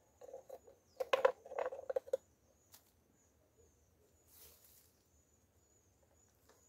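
Close handling noises as a jataí bee nest is set into a hive box: a quick cluster of small knocks, clicks and rustles in the first two seconds, then only faint rustling.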